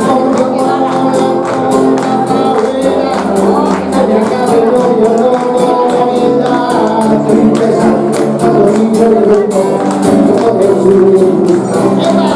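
A song: a singing voice over instrumental backing with a steady beat of light, crisp percussion strokes.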